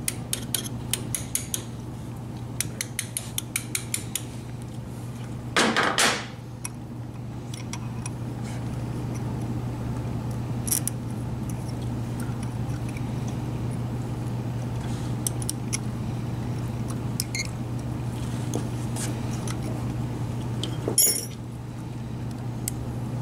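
Steel hand tools clicking against a broken bolt in a motorcycle engine case: a quick run of light metallic clicks over the first few seconds, then scattered clicks. There is a brief louder noise about six seconds in and another near the end, over a steady low hum.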